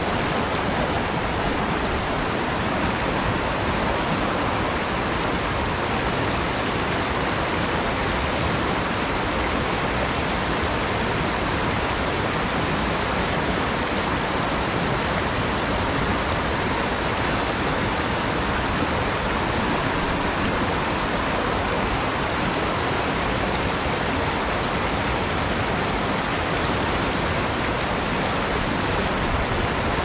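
Mountain stream rushing over rocks and riffles, a steady, unbroken rush of water.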